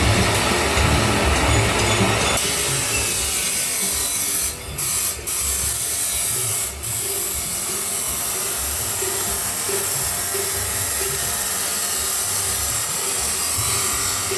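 Grinder cutting through stainless steel pipe: a loud, steady, high-pitched grinding that turns brighter about two seconds in and briefly drops out three times between about four and seven seconds in.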